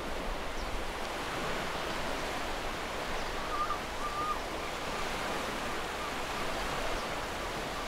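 Black Sea surf washing steadily onto a rocky shore.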